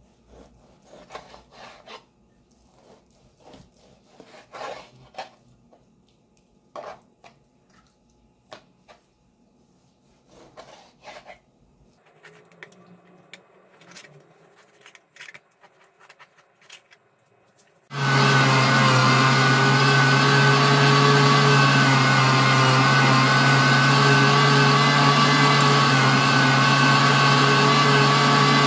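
Knife slicing raw pork on a plastic cutting board: scattered short cuts and taps. About two-thirds of the way through, an electric meat grinder switches on abruptly and runs loudly and steadily with a constant hum as it grinds the pork.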